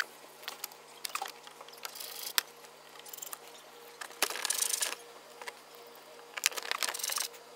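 Small clicks and three short rasping bursts of hand-tool work, as T30 fasteners are driven in to hold the plastic underbelly pan under the car. A faint steady hum runs underneath.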